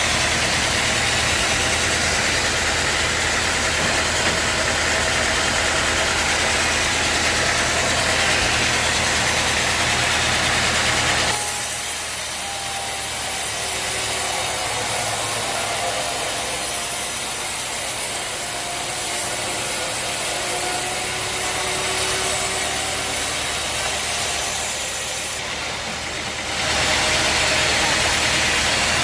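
An engine idling steadily. Its sound changes abruptly about 11 seconds in and changes back about 27 seconds in.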